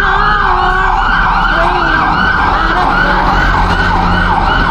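Emergency vehicle siren in a rapid yelp, its pitch sweeping up and down about three times a second, loud and steady.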